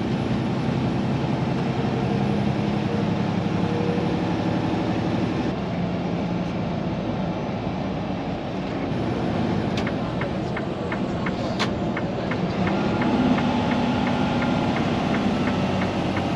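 Automatic semi truck cruising, heard from inside the cab: a steady engine hum and road noise, the hum shifting in pitch a few times. About ten seconds in, a regular ticking joins it.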